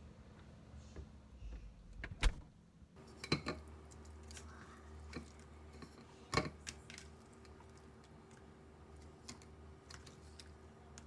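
Scattered light clicks and knocks of small objects being handled, over a low steady hum; the sharpest knocks come about two seconds in, a quick pair a little after three seconds, and another just past six seconds.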